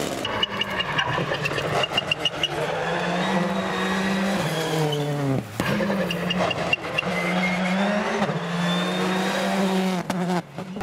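Turbocharged four-cylinder rally car engines driven hard on a tarmac stage, the pitch climbing and dropping with throttle and gear changes, broken briefly about halfway and again near the end.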